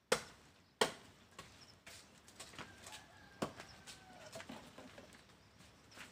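A few sharp clicks and light knocks as a wood hand saw and a file are handled, the loudest at the very start and about a second in, with faint bird calls in the background.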